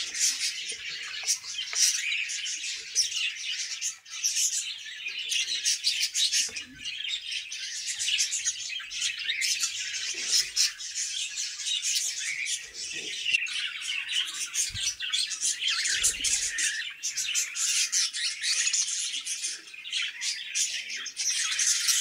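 Budgerigars chirping and chattering continuously, many overlapping high, raspy chirps.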